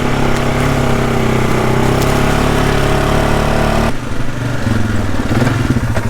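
An engine running steadily. About four seconds in, the sound switches abruptly to an engine idling with a rapid, even pulse.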